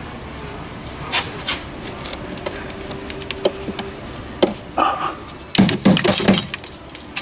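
Scattered clicks and knocks, with a short run of louder knocks and rattles about two-thirds of the way through.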